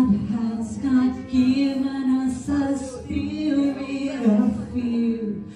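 A woman singing into a microphone over the hall's sound system, with long held notes and short breaks between phrases.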